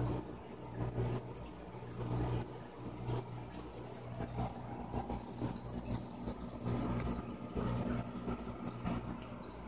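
Aquarium water running and bubbling steadily, with a steady low hum underneath.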